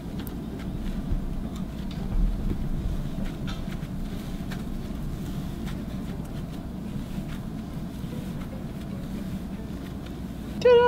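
Fluffy slime being kneaded and folded by hand, with soft squishing and faint crackling ticks over a steady low hum. A short hummed note begins right at the end.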